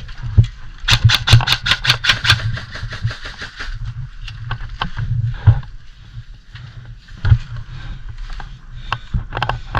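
Airsoft gunfire and BBs striking cover: a quick string of sharp snaps, about six a second, in the first few seconds, then scattered single cracks, over a steady low rumble.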